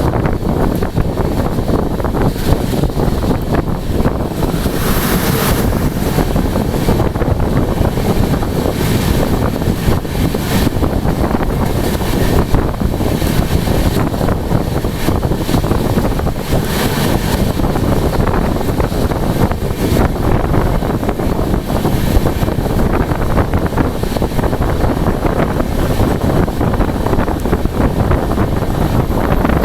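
Steady loud rush and rumble of a passenger train running at full speed in heavy rain, heard from on board, with wind buffeting the microphone.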